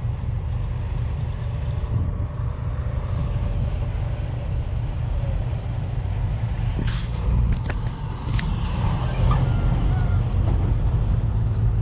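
Semi truck driving past over a steady low rumble, growing a little louder in the last few seconds, with a few sharp clicks about seven to eight seconds in.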